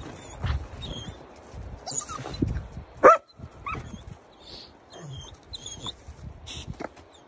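Alabai (Central Asian Shepherd) puppy giving one sharp, loud yip about three seconds in and a smaller one just after, with high, thin whining calls around it.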